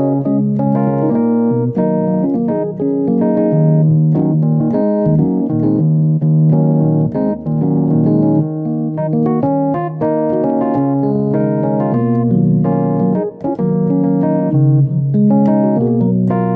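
Piano keyboard played with both hands: chords and notes struck one after another with no pauses, each held briefly before the next.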